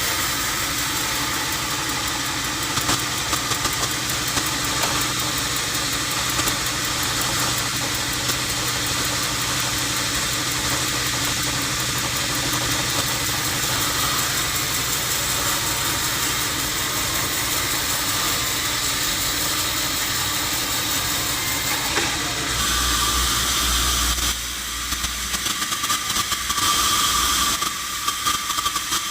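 Sawmill machinery running with a steady mechanical drone and hiss. About 22 seconds in the sound changes to a deeper hum with a higher steady tone, broken by a few short dips.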